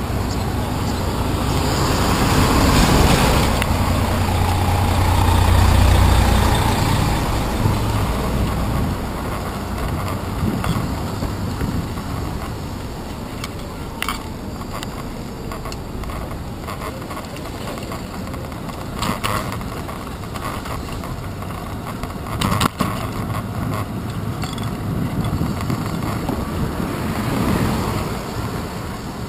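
City street traffic heard from a moving bicycle: engines of passing cars, taxis and a bus, with tyre and wind noise. A deep engine rumble swells loud for several seconds near the start, and a few sharp knocks come later.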